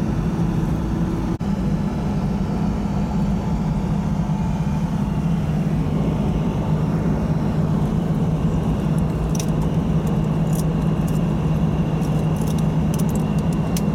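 Steady engine and tyre drone of a car cruising on a sealed highway, heard from inside the cabin. It drops out for an instant about a second and a half in.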